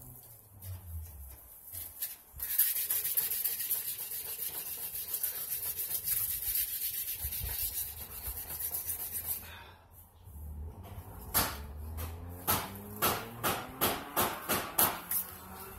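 Hand-sanding the painted steel frame of a mini bike, wearing through the old coats of paint. First comes a run of fast, scratchy rubbing strokes; after a short pause come slower, separate strokes at about two a second.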